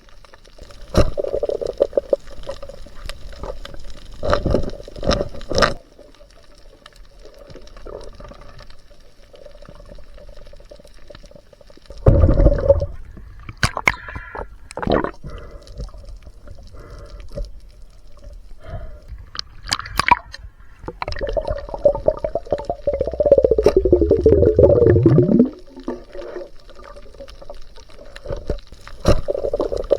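Water sloshing and gurgling close around the camera, coming and going in uneven surges, with several short sharp knocks.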